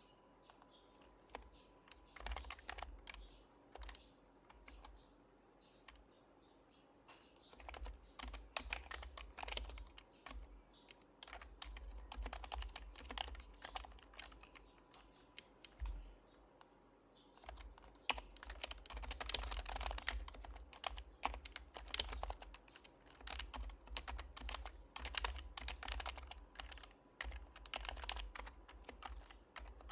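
Typing on an HHKB Professional HYBRID Type-S keyboard with its silenced Topre switches: soft, quick keystrokes in bursts separated by short pauses.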